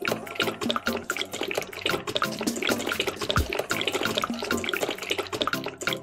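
Wet cement mix pouring out of a small cup and sliding down a wire-mesh ramp: a continuous run of many small wet splats and squelches.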